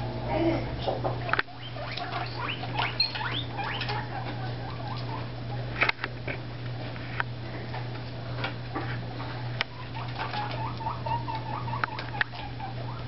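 Guinea pigs squeaking in many short chirps, with scattered clicks and patter as they move about their pen.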